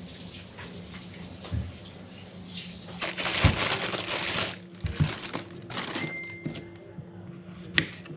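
Handling noises: rustling and crinkling with a few sharp knocks, and a short steady beep about six seconds in.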